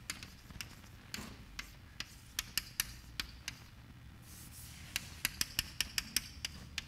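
Chalk tapping and clicking against a blackboard while writing: a string of irregular sharp ticks, with a pause in the middle and a quicker run of about five a second near the end.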